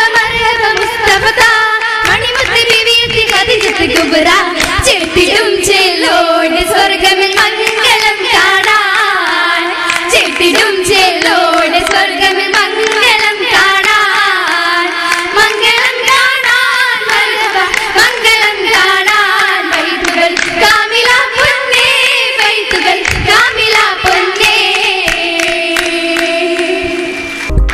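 Oppana: female voices singing a Mappila song in chorus, with frequent sharp hand claps from the dancers throughout.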